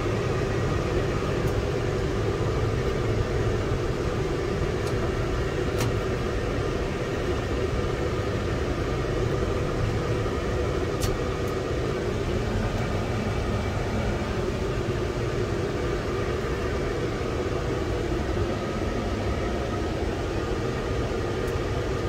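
Fendt 720 tractor heard from inside its cab, the engine idling steadily while the cab heater blower runs full bore, a constant rumble under an even rush of fan noise. A few faint ticks come through now and then.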